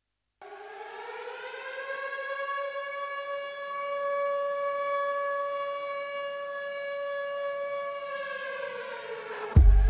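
Air-raid siren winding up in pitch, holding, then winding down near the end, opening the dance track. A heavy bass beat comes in just at the end.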